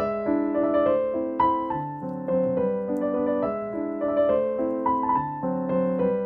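Background piano music: a gentle melody of single notes changing about every half second over sustained lower notes.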